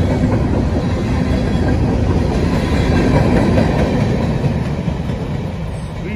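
Rear covered hopper cars of a CSX freight train rolling past, a steady rumble of steel wheels on the rails. The sound fades from about five seconds in as the last car clears and the train draws away.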